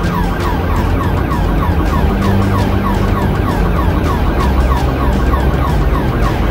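Police cruiser siren in a fast yelp, about five short falling sweeps a second, over steady engine and road noise from the pursuing patrol car.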